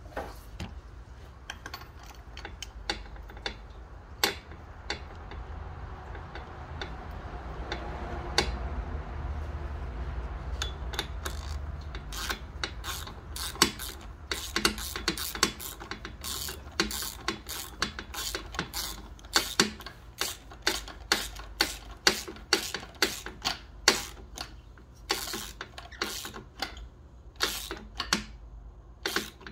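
Socket ratchet clicking in short runs as fasteners are worked, the clicks coming thicker and faster from about halfway through, over a low hum.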